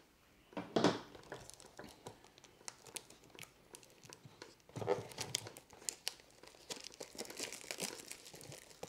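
Clear plastic wrap around a stack of baseball cards crinkling and tearing as it is pulled off. It makes a run of small crackles, with louder rustles about a second in and again about five seconds in.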